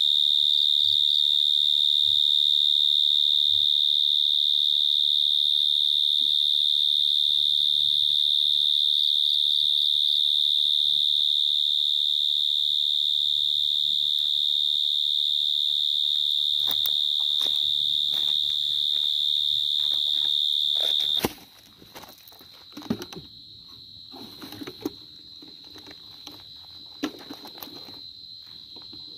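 A dế cơm, the large brown burrowing cricket (Brachytrupes portentosus), calls from the mouth of its burrow in one loud, unbroken high trill. The trill cuts off suddenly about two-thirds of the way through. Scattered rustles and knocks follow over a much fainter trill from other crickets.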